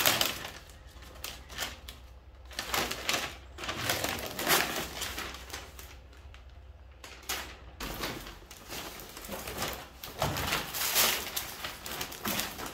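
Self-adhesive PVC marble sheet and its paper backing rustling and crinkling in irregular bursts as the backing is peeled away and the sheet is pressed down by hand.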